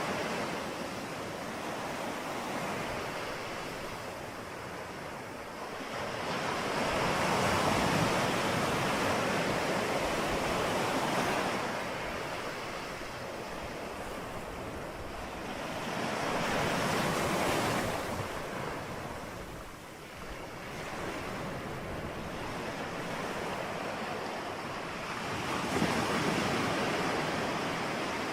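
Ocean surf: waves break and wash in slow surges that swell and ebb about every nine or ten seconds, three times.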